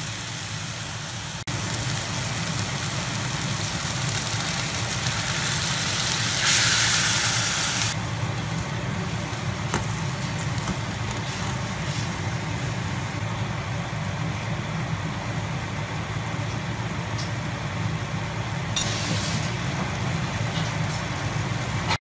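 Pork belly sizzling and bubbling in its sauce in a pot on a gas stove as it is stirred with chopsticks, over a steady low hum. A louder burst of hiss comes about six and a half seconds in and lasts over a second, and the sound cuts off suddenly at the very end.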